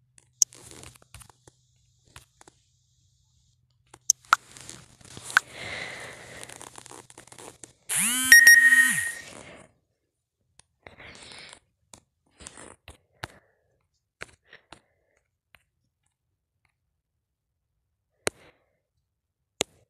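Scattered sharp clicks and crunching, rustling noise near a phone's microphone, with a short pitched electronic tone about eight seconds in, the loudest sound, that glides up, holds, and drops away, timed with an incoming message notification.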